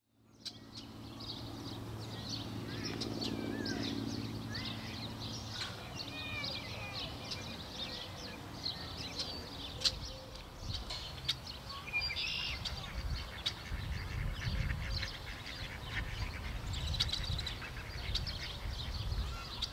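Many small birds chirping and calling over one another, with a low steady hum in the first several seconds and a low rumble in the last few seconds.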